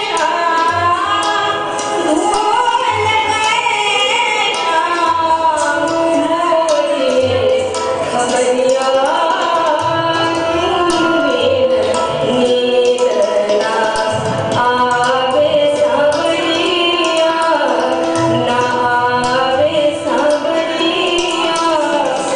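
Indian classical dance music accompanying a Kathak performance: a woman singing a gliding, ornamented melody over instrumental accompaniment and a regular percussion beat.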